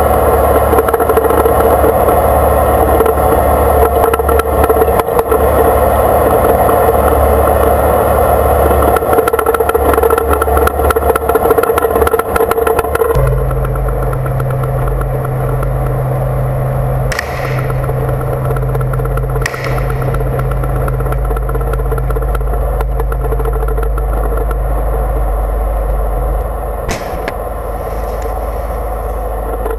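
Battle tank's engine running steadily, heard through a camera mounted on the tank's turret; the sound changes abruptly about halfway through. Three brief sharp cracks stand out in the second half.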